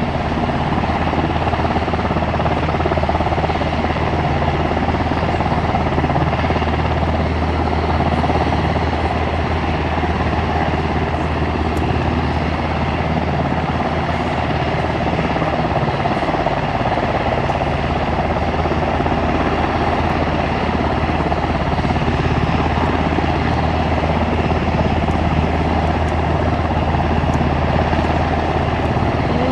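Aircraft engines running steadily: a constant low hum under a broad, even rush that does not change.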